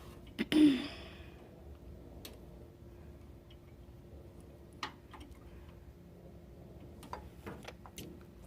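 Scattered handling clicks and taps, with one louder knock about half a second in, over a faint steady hum.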